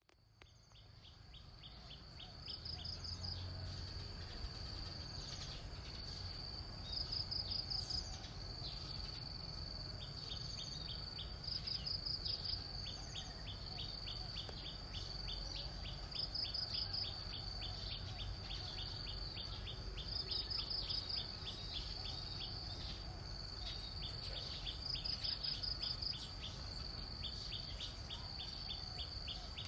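Forest insects shrilling in a steady high-pitched drone, with a louder pulsed chirping trill breaking in about every four to five seconds. The sound fades in over the first few seconds.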